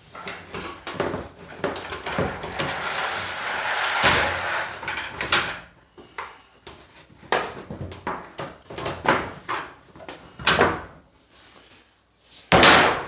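Plastic keyboard case of a Casio Casiotone CT-360 being pried apart with a screwdriver: repeated plastic clicks, creaks and scraping, with a stretch of steady scraping in the first half and a louder crack or clatter near the end.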